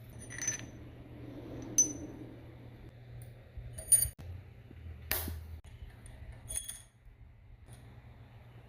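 Metal parts clinking against each other: about five sharp clinks, each with a short bright ring, spread over several seconds, the loudest about four seconds in.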